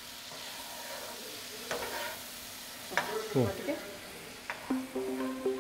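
Chicken roasting juices sizzling in a pan of melted butter, flour and pepper as they are poured in and stirred, with a few knocks of the utensil against the pan. Background music comes in near the end.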